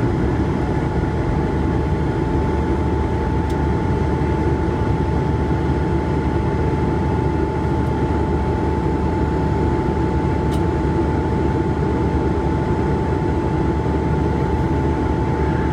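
Airbus A220-300 cabin noise in flight: the steady rush of the Pratt & Whitney PW1500G geared turbofans and airflow heard from a window seat, with a constant high whine running through it.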